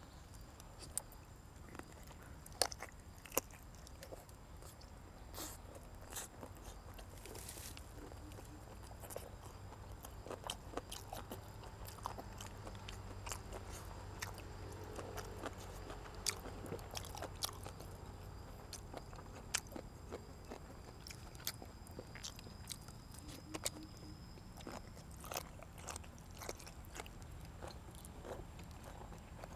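Close-miked chewing and biting of boiled pig ear, with frequent short crunches and wet clicks of the mouth.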